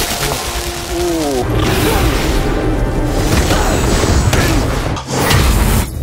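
Action-scene soundtrack: a dramatic music score layered with deep booming sound effects and a few falling tones about a second in. A brief drop just before the 5 s mark is followed by a loud rushing surge, the sound effect of a glowing blue portal bursting open.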